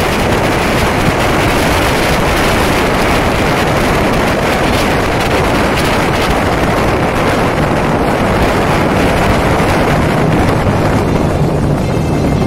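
Wind rushing over the microphone, with engine and road noise, while riding at motorway speed. The noise holds steady, and a low engine hum comes through more clearly near the end.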